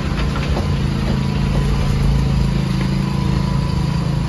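Maruti Suzuki Eeco van's engine idling steadily with an even low hum.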